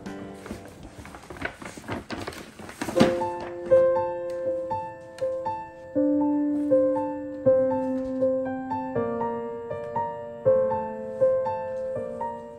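Stiff paper shopping bag rustling and crinkling as it is handled, for about the first three seconds. Then a slow piano melody of single struck notes, roughly one note every three-quarters of a second, each ringing out and fading.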